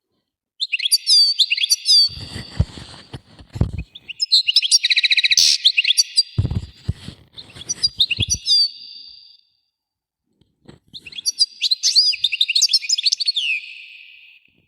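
A flock of small birds chirping and twittering together in three busy bursts, each cut off abruptly to silence, with low thumps under the first two.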